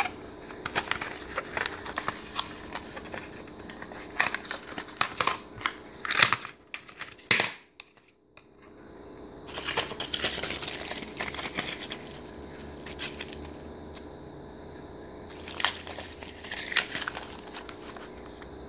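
Cardboard box and clear plastic blister tray of vape coil heads being opened and handled: crinkling, rustling and sharp clicks of packaging, in bursts, with a few quieter stretches.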